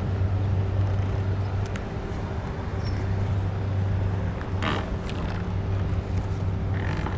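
A steady low mechanical hum, like a motor running at constant speed, with a couple of brief rustles in the second half.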